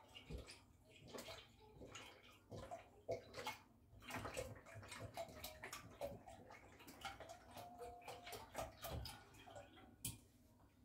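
Milk pouring from a carton into a stainless steel saucepan: a faint, uneven splashing of liquid.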